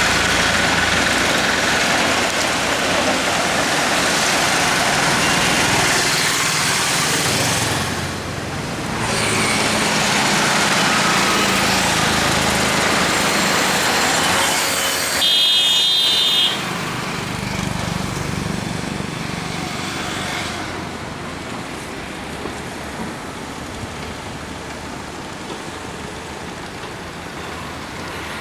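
Motor vehicle traffic running steadily, louder in the first half, with a vehicle horn sounding once for about a second halfway through.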